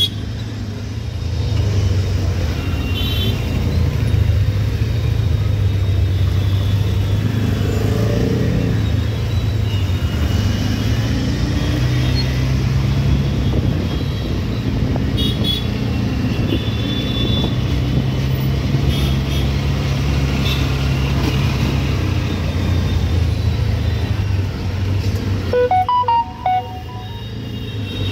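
Auto-rickshaw's small engine running as the rickshaw moves through city traffic, its drone shifting in pitch with engine speed. Short horn toots from surrounding vehicles sound now and then.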